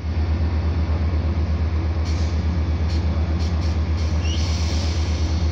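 Metrolink EMD F125 diesel locomotive standing and idling, its engine a deep, evenly pulsing throb. Short hisses of released air come about two seconds in and again around three and a half seconds, then a longer hiss for about a second near the end.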